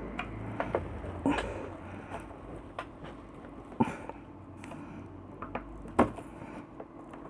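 Scattered clicks and light knocks of small parts being handled during repair work on a compressor nebulizer, with three sharper knocks about a second, four seconds and six seconds in.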